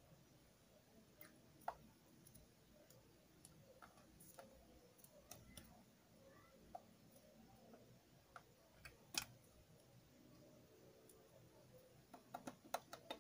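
Near silence broken by faint, scattered clicks and light taps of plastic lip gloss tubes being handled, with a quick run of clicks near the end.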